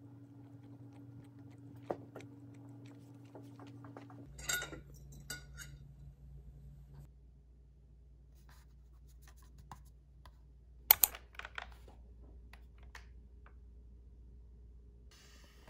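Quiet room tone with a low hum, broken by small handling noises. There is a light click about two seconds in and a short rustle a little after four seconds. A sharp double click near the middle is the loudest sound.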